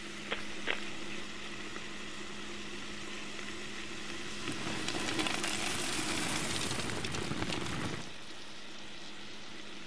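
Chopped onions sizzling in a clay pot, with two light clicks near the start. About halfway a louder crackling hiss swells for some three seconds and cuts off suddenly.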